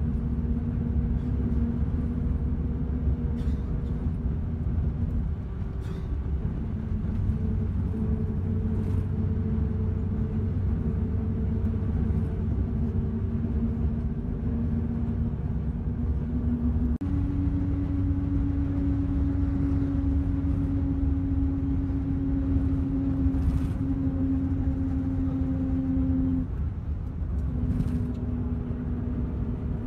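Engine and road noise heard from inside a moving vehicle: a steady low rumble with a humming engine tone that steps up in pitch a little past halfway and drops back near the end.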